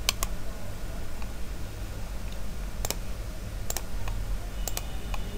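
Computer mouse clicking: about six sharp, separate clicks, a pair right at the start, single ones about three and four seconds in, and a quick pair near the end, over a faint low steady hum.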